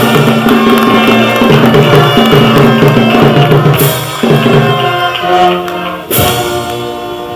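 Band music with drums, played as a celebratory flourish after the commissioning declaration; sustained pitched notes over drumming, with a loud crash about six seconds in.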